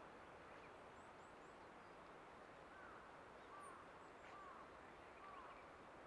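Faint birdsong over a steady low hiss. A bird repeats short, arching chirps about once a second from about three seconds in, with a few thin, high chirps before them.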